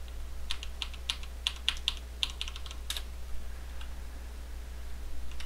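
Computer keyboard being typed on: a quick run of about a dozen keystrokes starting about half a second in and stopping about three seconds in, with a steady low hum underneath.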